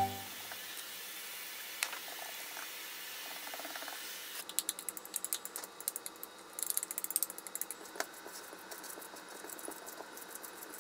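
Food-prep handling sounds: a spatula stirring sauce in a stainless-steel bowl with faint scrapes. About four seconds in comes a fast run of light clicks as wooden chopsticks scrape chopped onion out of a ceramic bowl. After that, quieter sounds of hands kneading ground meat for hamburger steak.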